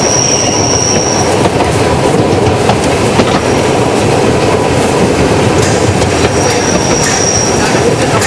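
Metre-gauge Harz narrow-gauge railway train running downhill, with a steady rumble of wheels on the rails and scattered rail-joint clicks. A high, thin wheel squeal sounds twice: at the start and again about six seconds in.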